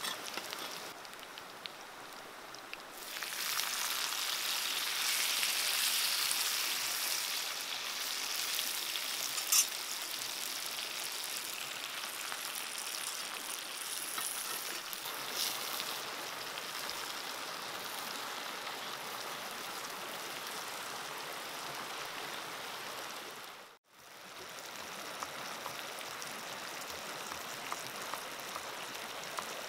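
Garlic and water spinach frying in oil in a clay pan: a steady sizzle that gets much louder about three seconds in and then holds. Near the end it cuts out briefly and a steady hiss follows.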